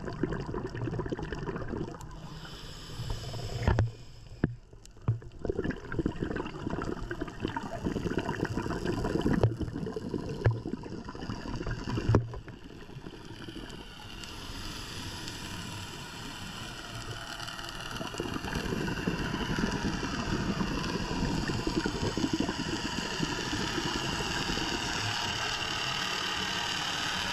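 Underwater sound of a scuba diver's regulator breathing: gurgling, rumbling bursts of exhaled bubbles with a brief hiss of inhalation and a few sharp knocks. About halfway through a steadier hissing noise with a faint whine comes in and holds.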